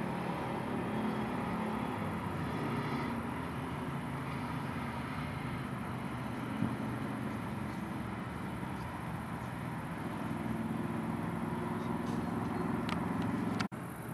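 Steady outdoor hum of distant road traffic, with engine drone swelling and fading. It cuts off abruptly near the end.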